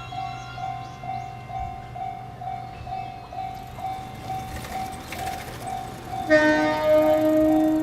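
Japanese level-crossing warning bell ringing steadily at about two strikes a second, over the low hum of a passing electric train. About six seconds in, a train horn sounds one loud, long blast that is held for about two seconds.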